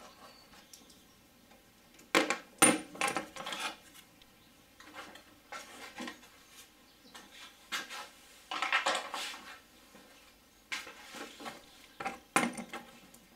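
The VR6 engine's plastic top cover being lifted off and handled along with its small screws and bits: short knocks, clatters and clinks of hard plastic and metal, in four bursts a few seconds apart.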